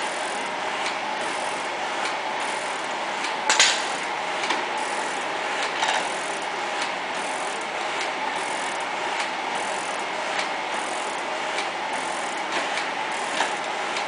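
G&E 20-inch mechanical shaper running: a steady gear and drive noise with a click about once a second as the ram strokes and the feed ratchets over, and one louder clank about three and a half seconds in.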